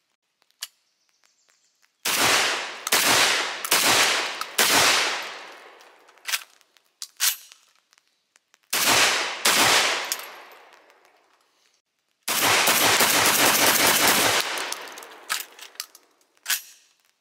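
Vepr 12 semi-automatic 12-gauge shotgun firing outdoors: a quick string of about five shots, a couple of faint clicks, two more shots, then a dense two-second run of rapid blasts. Each string is followed by ringing echo. The firing breaks off between strings, as the shotgun keeps stopping: the shooter blames the Vepr running badly, not the ammunition or the optic.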